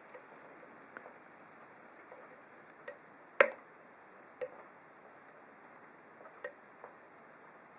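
Irregular sharp metallic clicks of a hook pick and tension wrench working the pins of an ASSA SCD 7-pin oval lock cylinder. There are about half a dozen, the loudest about three and a half seconds in.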